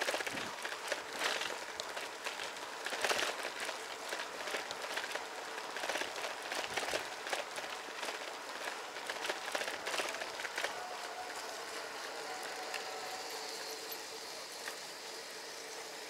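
Wind and rolling noise from riding a bicycle, with frequent small clicks and rattles. Underneath, a call to prayer (ezan) from a mosque loudspeaker carries faintly as a drawn-out tone.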